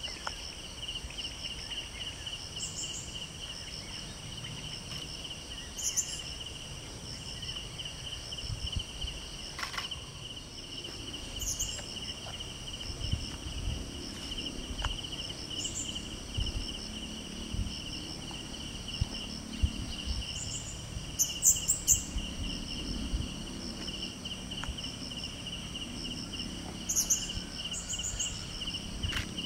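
Steady chorus of insects, cricket-like, a fast pulsing trill at one high pitch, with short higher chirps every few seconds. Low rustles and soft thumps come and go through the middle part.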